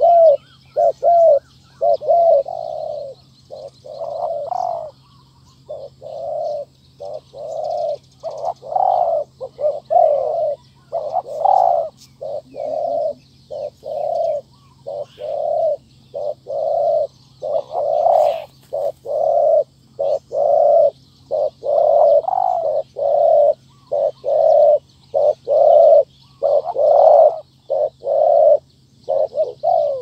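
Spotted dove cooing: a near-continuous string of short, low coo notes, about two a second, with brief pauses. Small birds twitter faintly in the background.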